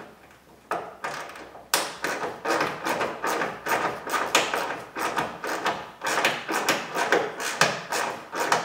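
Ratchet with an 8mm socket and extension clicking in quick runs as it backs off the grille's retaining nuts on rusted studs. A single click about half a second in, then a steady string of sharp clicks from about two seconds in.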